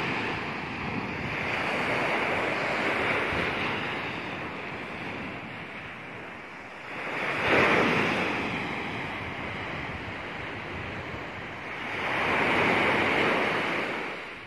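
Sea surf breaking on a sandy beach: three waves rise and wash in, the loudest about halfway through, with a steady hiss of water between them.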